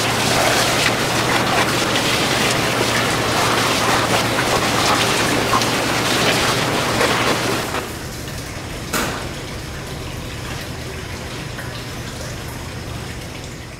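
An IPX5 water jet from a 6.3 mm nozzle (12.5 l/min) spraying hard onto an LED fresnel light and the steel walls of a test chamber: a dense splashing hiss. About eight seconds in the spray stops, leaving a quieter steady hiss over a low hum, and one sharp knock follows about a second later.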